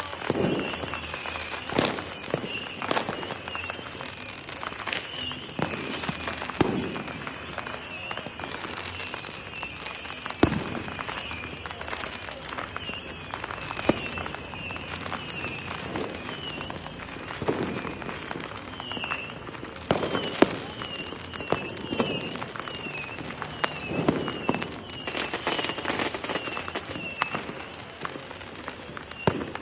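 Fireworks going off: irregular cracks and booms, roughly one every second or two, the sharpest about a third and two-thirds of the way through. A short high chirp repeats over them throughout.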